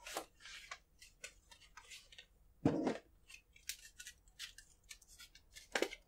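AMD Ryzen processor's cardboard retail box being opened and its clear plastic clamshell taken out: a run of light clicks and crinkles of cardboard and plastic, with a louder rustle about halfway through.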